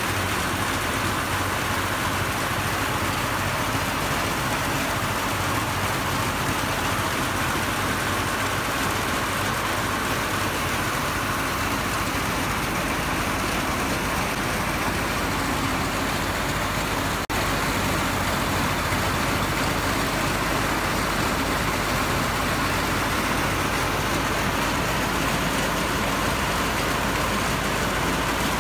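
Rice threshing machine running steadily, its drum whirring and rattling as bundles of rice stalks are fed in, over a constant low engine hum. The sound drops out for an instant about two-thirds of the way through.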